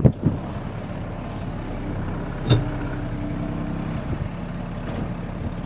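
Mercedes-Benz Unimog U2450 6x6 truck's diesel engine running steadily while crawling, with a single sharp knock about two and a half seconds in.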